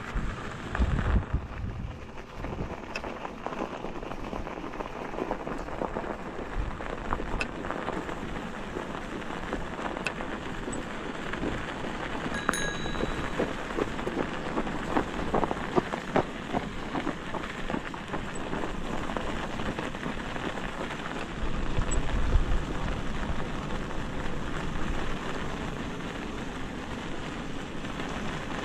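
Electric bike's tyres rolling downhill over a rough winter trail: a steady crackling hiss full of small clicks. Low wind gusts hit the microphone about a second in and again about three-quarters of the way through.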